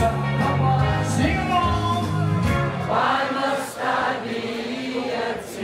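Live band playing a song with a singer: held notes over a steady bass line.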